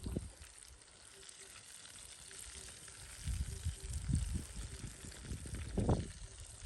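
Hot oil sizzling steadily as pieces of karaage (Japanese fried chicken) deep-fry, with a few low thumps near the middle and about six seconds in.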